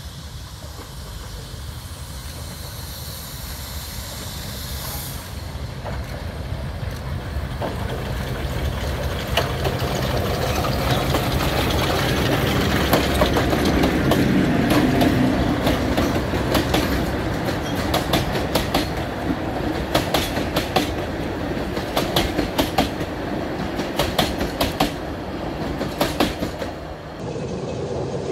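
Narrow-gauge steam train running past, its rumble building to a peak about halfway through, with wheels clicking over the rail joints in quick, irregular clicks through the second half.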